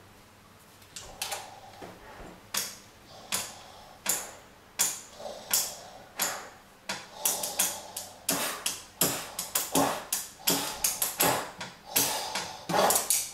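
An improvised percussion beat of sharp clicks and pops made by a group of people, starting as single clicks about every three-quarters of a second and becoming a dense, layered rhythm of several clicks a second about halfway through.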